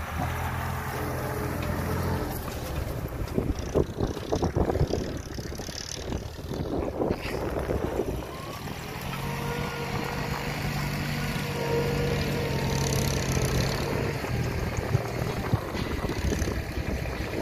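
Diesel farm tractor engine running steadily, its low hum fading a few seconds in and coming back strongly around the middle, with wind gusting on the microphone.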